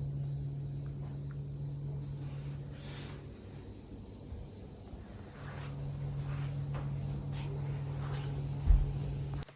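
A cricket chirping steadily, short high chirps at about three a second, over a low steady hum and rumble. There is a dull thump near the end.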